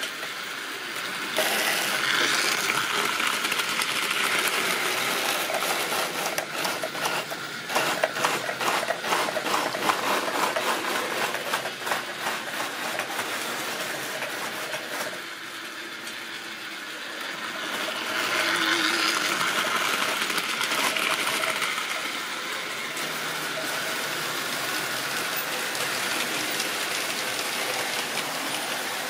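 Model railway freight train of tank wagons and a brake van running on sectional track: a small electric motor whirring and wheels clicking over the rail joints. The sound grows loud about a second and a half in, with a rapid clatter of clicks for several seconds in the middle and a second swell as the wagons pass close by.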